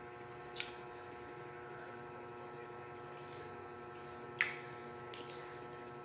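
Someone chewing crunchy guava, with a few short sharp crunches and mouth clicks, the loudest about four seconds in, over a steady electrical hum.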